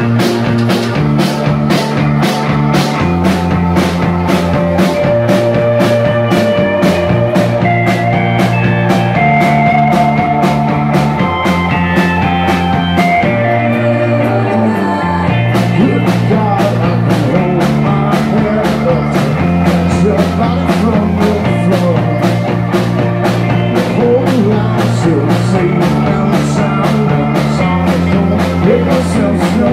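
Live rock band playing on electric guitar, bass guitar, keyboard and drum kit, with a steady beat. The drums drop out for a moment about halfway through.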